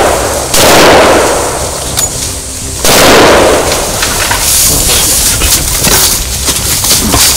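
Two big-game rifle shots about two and a half seconds apart, each a sudden blast trailing off in a long rolling echo. These are followed by a few seconds of scuffling noise.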